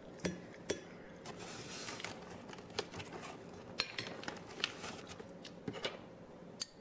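Scattered light clicks and clinks of kitchenware: a plastic measuring spoon tapping a stainless steel saucepan and small glass prep bowls being handled on a countertop. A brief soft hiss about a second and a half in.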